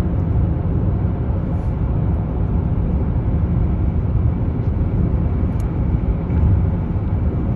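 Steady low rumble of a car driving through a road tunnel, heard from inside the cabin: road and engine noise.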